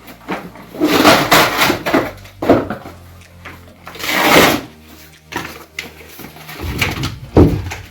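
Cardboard being torn and handled by hand, a series of short rasping tears and rustles, with a couple of heavier knocks near the end.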